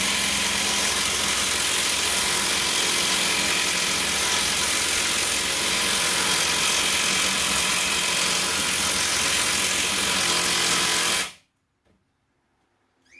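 Makita 40V XGT cordless impact wrench hammering steadily as it drives a 300 mm by 12 mm screw bolt into timber, the rapid impacts running unbroken under load. The hammering cuts off suddenly about eleven seconds in.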